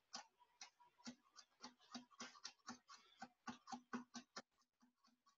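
A quick run of faint, sharp clicks, about four or five a second and slightly uneven, thinning out and fading in the last second.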